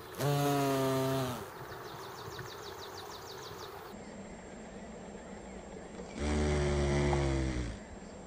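Carpenter bee buzzing in two bursts: a buzz of about a second near the start that drops slightly in pitch, and a longer one about six seconds in.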